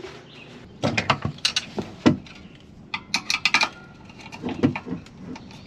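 Sharp clicks and clinks of a screwdriver and metal hardware at the inverter's battery-cable terminals, in quick clusters, then a few duller knocks near the end.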